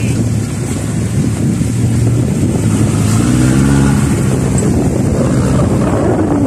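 Engine of a lifted Mitsubishi Adventure on big mud tyres running under load as it crawls up a gravel bank. It revs up about halfway through and then settles back, with wind buffeting the microphone.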